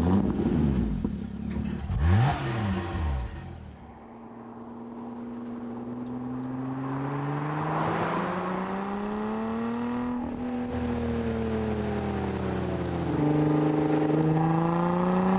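Lotus Evora 400's supercharged V6 revving hard in short blips, then accelerating with a steady engine note that climbs in pitch, falls away about ten seconds in, and climbs again louder near the end.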